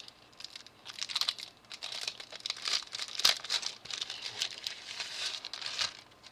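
Crinkling and rustling of a rub-on transfer sheet being handled, irregular crackles throughout, with one sharp click about three seconds in.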